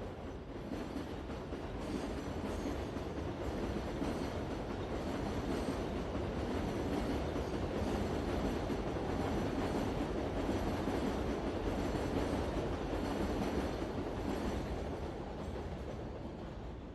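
Metro train running on its rails, a steady rumble with faint wheel noise that builds over the first few seconds, holds, and fades away near the end.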